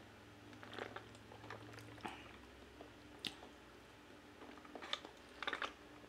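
Close-miked mouth sounds of sipping water through a drinking bottle's straw: soft scattered clicks and smacks from the lips and mouth.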